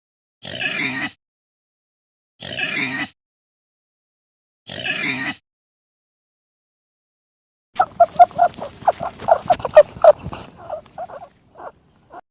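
Three short pig oinks about two seconds apart. After a pause comes a different farm animal's rapid run of short pulsing calls, lasting about four seconds.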